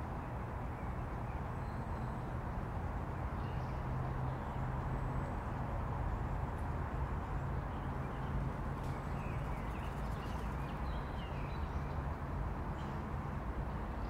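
Park ambience: a steady rumble of distant city traffic with a few faint bird chirps scattered through it, mostly in the second half.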